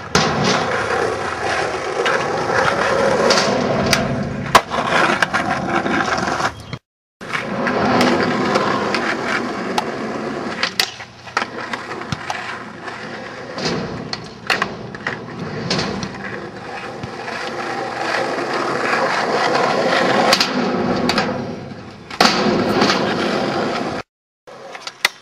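Skateboard wheels rolling over rough asphalt and ramps, with several sharp clacks of the board popping and landing on tricks. The sound cuts out twice for a moment.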